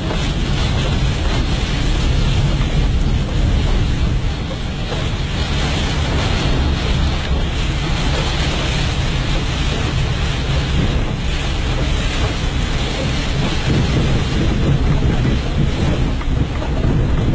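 Steady rushing noise of wind and rain on the microphone, with a heavy low rumble.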